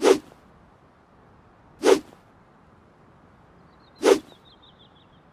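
Handmade longsword swung through the air three times, about two seconds apart, each swing a short whoosh.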